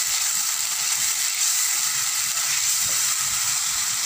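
Onion paste, ginger and garlic paste and poppy seeds frying in hot oil in an aluminium pan, a steady sizzling hiss, while a wooden spatula stirs them.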